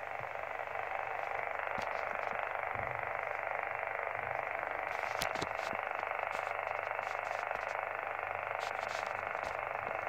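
Steady rushing noise from a Yaesu transceiver's speaker tuned to the 6-metre band near 50.275 MHz in sideband mode. It is interference of unknown origin, strong enough to read S6 to S7 on the meter, with a few faint clicks.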